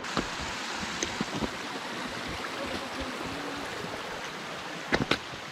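Mountain stream rushing steadily, with a few sharp clicks about a second in and again near the end.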